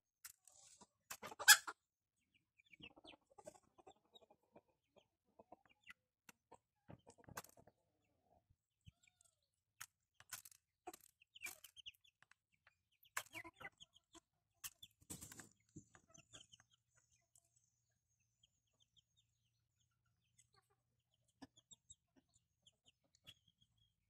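Bantam chickens clucking now and then while feeding, with scattered short, sharp sounds, the loudest about a second and a half in. The sounds thin out to very faint after about sixteen seconds.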